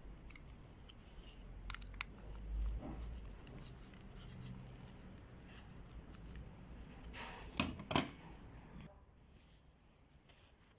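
A knife's Kydex sheath and its fastening system being handled: faint rubbing with a few sharp plastic clicks, the loudest pair about eight seconds in.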